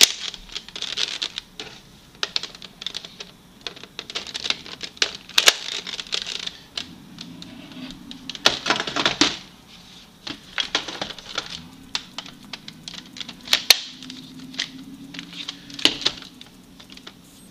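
Hard plastic Nerf blaster attachments clicking, clacking and snapping into place as a scope, barrel extension and folding bipod are fitted onto a Nerf Modulus blaster. Irregular clicks run throughout, with a few louder snaps.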